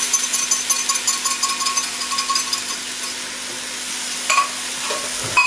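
Ground turkey sizzling in a hot pan just after tomato paste mixed with hot water has been poured in. A utensil stirs it, with quick small clicks against the pan for the first few seconds and two sharper knocks near the end.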